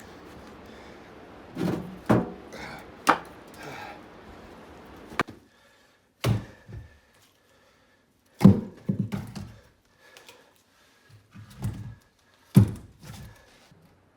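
Split firewood pieces knocking together as they are handled and set down: a series of hollow wooden thunks, each with a short rattle after it, the loudest a little past halfway.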